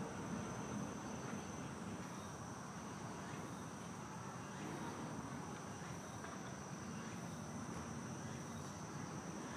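Insects calling in a steady high-pitched drone, over a low, even background noise.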